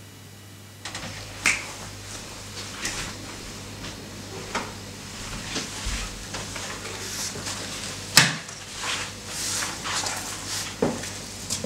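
Handling noises in a small room: a scattering of light clicks and knocks with some rustling, the sharpest knock about eight seconds in.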